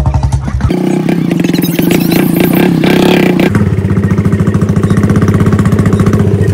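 Royal Enfield Bullet's single-cylinder engine, heard from the saddle, running with a steady thumping beat. About a second in the pitch rises as it is revved, and a little past halfway it drops back to a lower, even beat.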